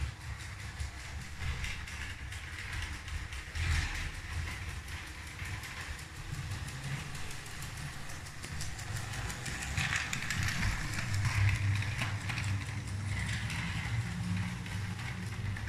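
Lego 12V electric train (set 7725) running: the motor's steady whir and hum, with light, fast clicking of the wheels over the plastic track. It grows somewhat louder in the second half.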